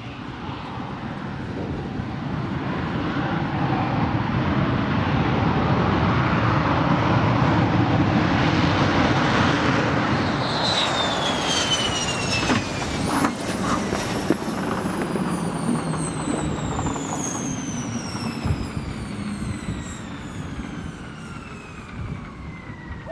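F-16 fighter's single jet engine running at high power as the jet rolls down the runway toward and past, growing louder. As it passes, its whine slides down in pitch, with a couple of knocks, and the noise then fades as it moves away.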